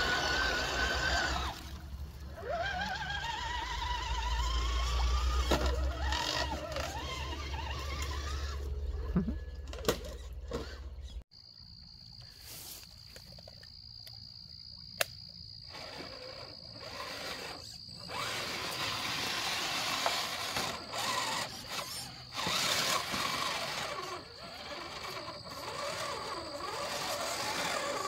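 Electric motors of RC scale crawler trucks whining, rising and falling in pitch as the trucks drive through shallow creek water, over a low rumble. After a sudden change about eleven seconds in, a steady high tone runs on beneath quieter motor and water sounds that grow again later.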